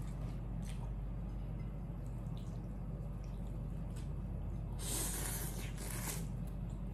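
A person slurping noodles with broth: two noisy slurps close together, the first about a second long, a little after halfway through.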